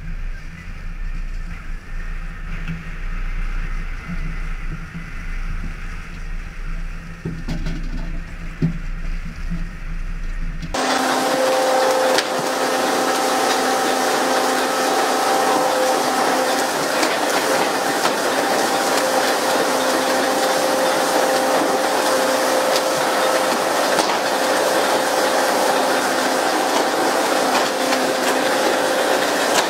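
A boat's engine hums steadily under wind and sea noise. About eleven seconds in, the sound cuts to a loud, steady rush of water spray from the tuna boat's hull sprinklers, which pole-and-line boats run to imitate a boil of baitfish, with a steady mechanical hum from the pumps under it.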